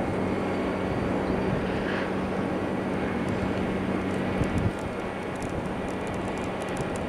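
A steady motor drone with a constant low hum.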